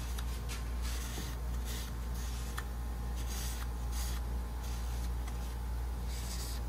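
Shop towel rubbing over the main bearing saddles of an LS engine block in short, irregular wiping strokes, cleaning the bearing seats dry before the main bearings go in. A steady low hum runs underneath.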